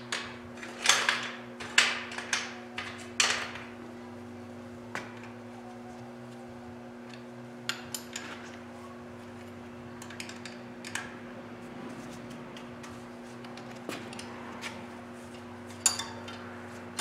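Metal hand tools and engine parts clinking and clattering against metal: a burst of sharp clanks in the first few seconds, scattered lighter clicks, then a few more clanks near the end, over a steady low hum.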